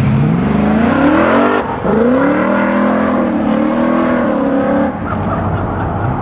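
A car engine revving hard as the car accelerates: the pitch climbs, drops at a gear change after about a second and a half, then climbs again and holds high until it falls away near the end.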